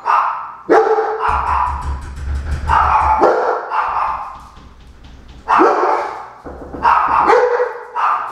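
German Shepherds barking loudly at a door: a run of barks, a pause of about two seconds, then more barks. This is alarm barking set off by a knock on the door.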